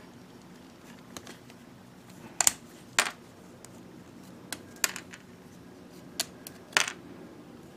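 Sharp clicks and taps of small hard plastic model-kit parts and runner being handled, about seven scattered separate clicks.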